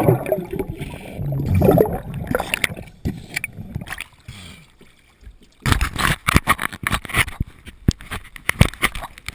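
Water against a waterproof action-camera housing: a muffled underwater rumble that fades, then, once the camera breaks the surface a little past halfway, a run of sharp splashing, dripping crackles and ticks.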